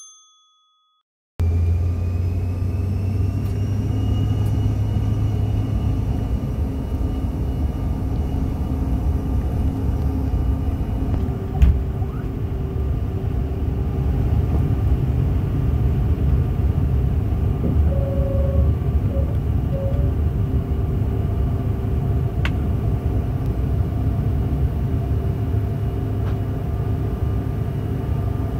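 Takeoff heard from inside the cabin of a Bombardier CRJ-700: after a second of silence, a loud steady rumble of the rear-mounted GE CF34 turbofans and the runway, with a whine rising in pitch over the first few seconds as the engines spool up. A single thump comes near liftoff, and the steady rumble carries on through the climb.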